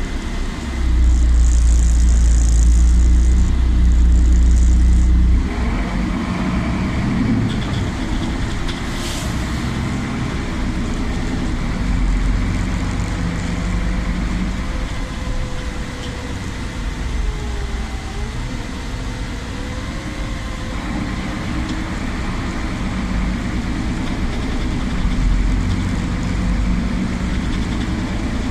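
Inside a Solaris Urbino 12 city bus on the move: engine and road rumble running steadily throughout. From about a second in to about five seconds in there is a louder deep rumble with a high hiss over it.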